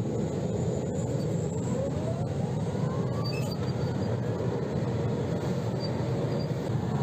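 T-80BV tank's gas-turbine engine running: a steady rumble with a thin whine that rises in pitch from about a second and a half in.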